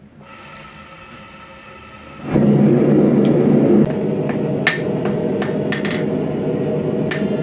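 Forge running with a steady roar that comes on about two seconds in, with a few sharp metallic clinks over it.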